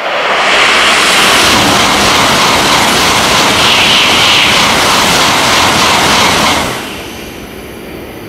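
Shinkansen train passing non-stop through the station at high speed, close by: a loud, steady rush of air and running noise for about six and a half seconds that drops off sharply as the last car goes by, then fades.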